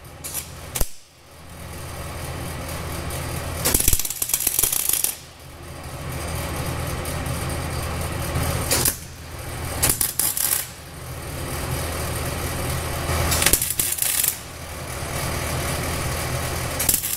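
Welder building up the worn pivot pins of a tractor seat bracket with weld. It makes a steady crackling buzz over a constant hum, in several passes, some of them louder and hissier.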